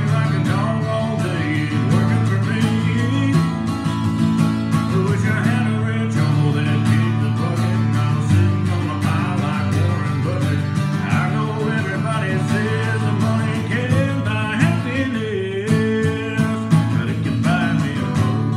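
A man singing a country song to his own strummed guitar, with the voice and guitar going on steadily throughout.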